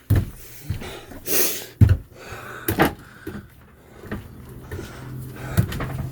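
Mallet tapping a mahogany plug down into a hole in a boat's deck: a series of sharp, irregularly spaced knocks, about seven in all. A low steady hum grows underneath in the second half.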